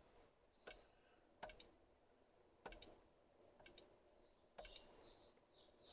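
Faint clicks of buttons being pressed on a key-cutting machine's keypad as cut depths are entered, single and double presses about a second apart, with a couple of short high beeps near the start.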